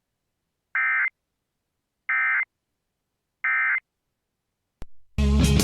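Emergency Alert System end-of-message data tones: three short, identical digital bursts about 1.3 seconds apart, signalling the end of the alert. Near the end there is a click, then music starts abruptly.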